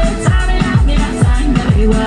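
Electronic dance music with a steady beat of deep kick drums that drop in pitch, a few strokes a second, played over the stage sound system.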